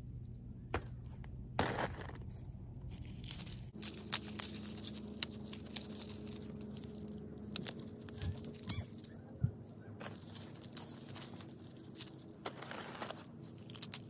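Dry, papery skins of a garlic bulb crackling and tearing as the bulb is broken apart by hand into cloves: a string of small, crisp crackles.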